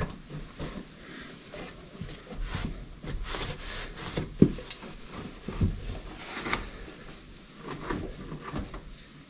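Cloth rag wiping cleaner off the painted sheet metal of a 1961 VW Beetle's engine compartment: irregular rubbing strokes with a few light knocks.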